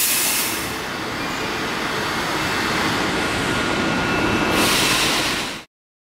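Compressed air hissing in two bursts from the joined automatic couplers of two ICE high-speed trainsets: one at the start, another near the end. A steady low rumble from the standing trains runs underneath, and the sound cuts off suddenly just before the end.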